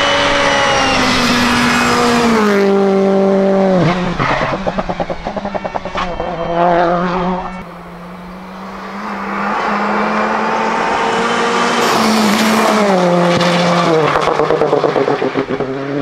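Citroën C3 Rally2's turbocharged 1.6-litre four-cylinder engine at full throttle, its note dropping in steps as it shifts down, then popping and crackling as it comes off the throttle. About halfway through a second pass builds up and does the same.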